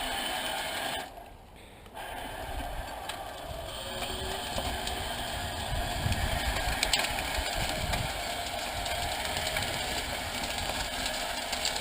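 Electric remote-control Mead Mightymouse dozer running and driving, its motors and tracks making a steady mechanical rattle that drops away for about a second near the start and then picks up again, with low knocks in the second half.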